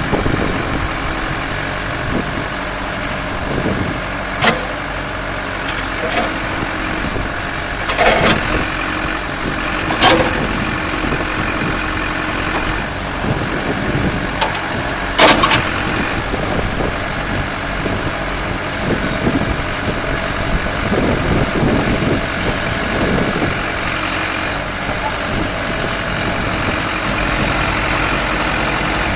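John Deere 310D backhoe's turbo diesel engine running steadily, with several sharp knocks over it.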